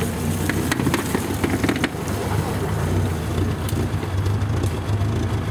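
Off-road vehicle engine running with a steady low drone, with a few knocks and clatters in the first two seconds.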